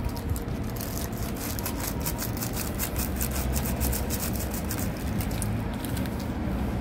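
Rapid, scratchy clicking of chopsticks stirring instant noodles in a cup noodle bowl, dying away about five and a half seconds in. Underneath is a steady low rumble of street traffic.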